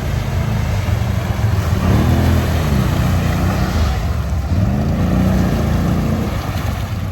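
ATV engine running under load, revving up and easing off twice.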